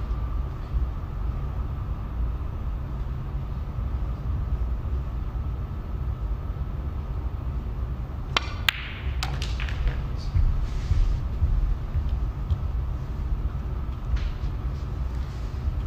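Snooker balls clicking: a little over halfway through, the leather cue tip strikes the cue ball and the cue ball cracks into the blue, which is potted, giving a few sharp clicks. A steady low hum runs underneath.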